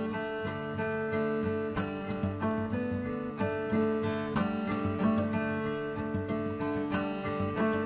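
Background intro music: sustained pitched notes, with new notes struck at a steady pulse.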